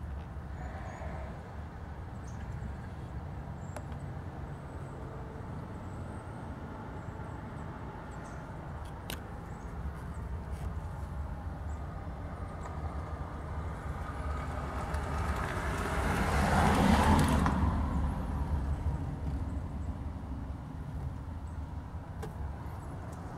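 A motor vehicle passing, rising to a peak about two-thirds of the way through and then fading, over a steady low rumble.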